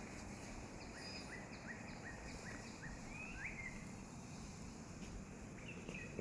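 A wild bird singing: a quick series of about six short sliding notes, then a longer swooping note, and one more brief phrase near the end, over a steady low background hiss.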